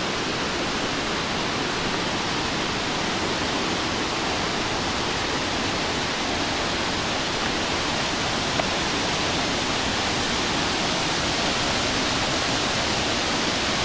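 Steady rush of white water from the Zambezi below Victoria Falls: an even, unbroken hiss with no pauses.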